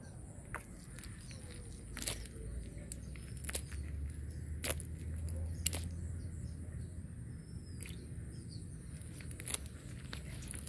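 Handling sounds of a cast net being picked over for small fish: scattered sharp clicks and soft rustling of the mesh, with a low rumble in the middle and a faint bird chirp now and then.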